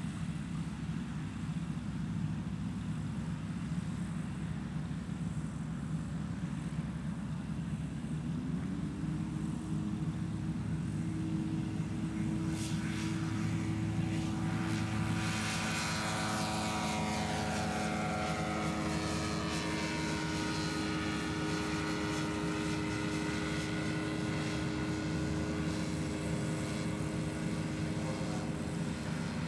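Sky Pup ultralight's single-cylinder two-stroke engine and propeller running at takeoff power. The pitch rises about a third of the way in as the engine comes up to full power, falls as the plane lifts off and passes by, then runs steadily as it flies away.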